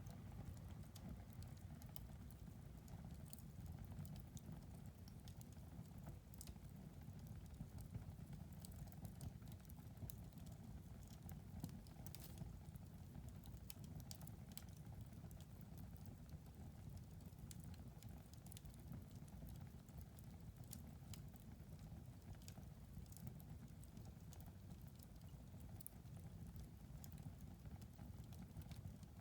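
Wood fire in a fireplace crackling faintly: scattered small pops and snaps over a low steady rumble of the burning fire.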